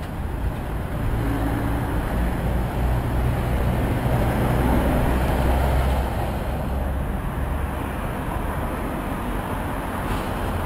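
Road traffic at a roundabout: vehicle engines running close by, with a low engine drone that swells about four to six seconds in and then eases.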